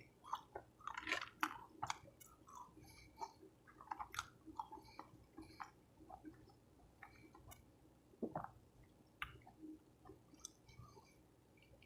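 Close-up chewing of a soft taco: irregular wet mouth clicks and smacks with soft squishing, a few louder bites among them.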